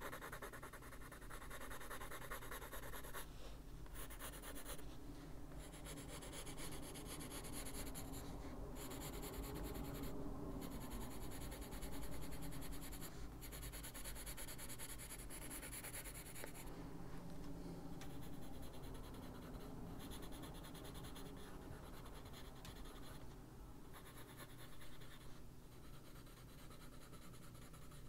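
Brown Faber-Castell Polychromos coloured pencil scratching across the page in short shading strokes, broken by several brief pauses where the pencil lifts.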